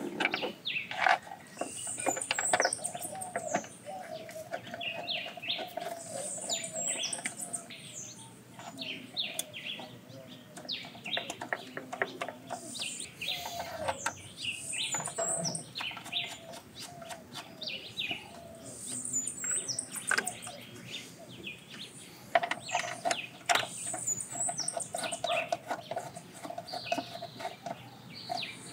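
Birds chirping and singing in the background, with scattered clicks and knocks as a plastic engine timing belt cover and its bolts are handled and fitted by hand.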